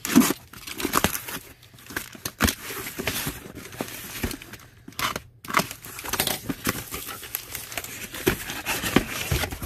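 Corrugated cardboard box being handled and opened: the box turned over and its flaps pulled open, with scraping and rustling of cardboard and repeated irregular knocks against the table.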